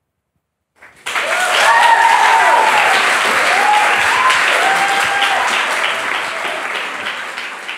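Audience applauding, with voices cheering and whooping over the clapping. It starts suddenly about a second in and eases off slightly near the end.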